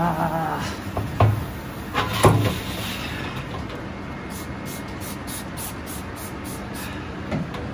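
A large stainless-steel stockpot being scrubbed with a soapy sponge in a steel sink. A few sharp metal knocks come in the first seconds as the pot is handled, and later there is an even run of faint high strokes, about four a second.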